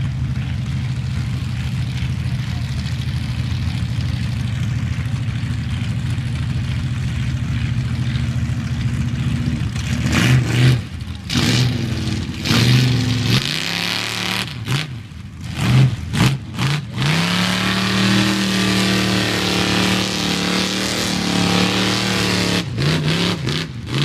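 Engine of a lifted mud-bog pickup running steadily, then revved hard in a string of throttle bursts about ten seconds in. It is held at high revs for several seconds before more short revs near the end, as the truck works through the mud pit.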